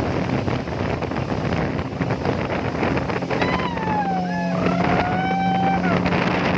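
Motorboat running at speed: a steady engine hum under rushing wind and water spray off the hull. About halfway through, a long high tone glides down and back up for a couple of seconds.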